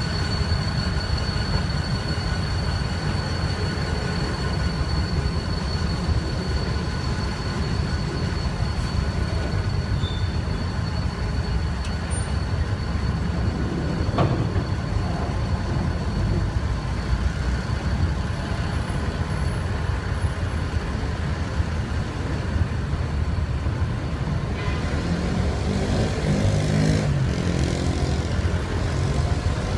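Slow freight train of empty flatcars rolling past close by: a steady low rumble of steel wheels on rail with a thin steady high squeal that fades about halfway, and one sharp clunk. Near the end a road vehicle's engine joins in.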